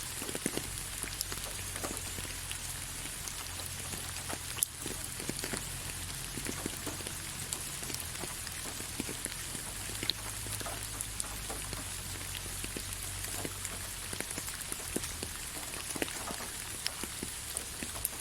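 Gentle steady rain, with many separate drops ticking on a surface over a soft hiss and one sharper drop about a third of the way in.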